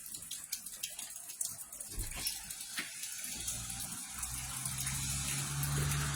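Rain falling, a steady hiss with scattered drops ticking. A low steady hum comes in about three seconds in and grows louder toward the end.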